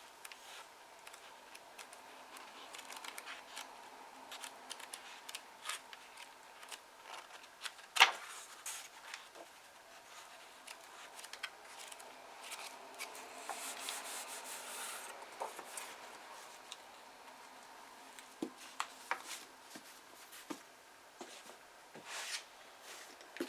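Pages of old paper being turned and handled: soft rustling and rubbing with scattered crisp page snaps, the sharpest about eight seconds in, and a longer rustle around the middle.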